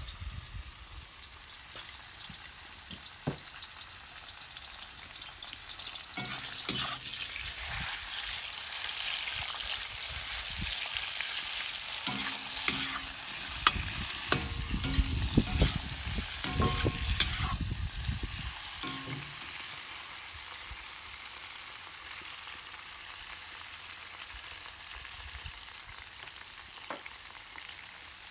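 Cubes of raw meat sizzling in hot oil in a cast-iron kazan over a charcoal fire, the first browning of the meat for plov. The metal skimmer stirs them with sharp clinks and scrapes against the pot, mostly in the middle stretch, where the sizzle is loudest and a low rumble joins it.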